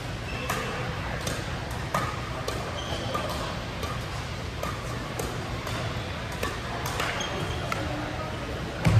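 Badminton rackets striking the shuttlecock: irregular sharp hits, roughly one or two a second, with a few brief high squeaks, over a steady low hum.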